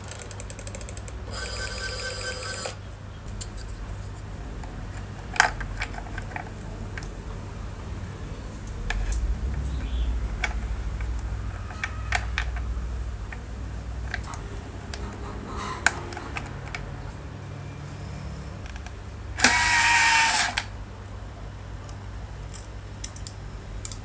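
Rotary telephone dial being turned and whirring back with a steady buzz as its governor returns it, then scattered clicks from the phone's switch springs and mechanism being handled. A louder, similar whirr comes near the end.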